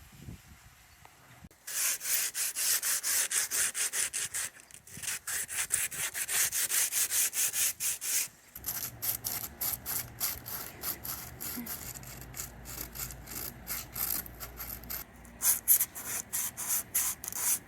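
Sandpaper being rubbed back and forth over the sailboat's surface in quick, rhythmic strokes, about four a second, starting about a second and a half in.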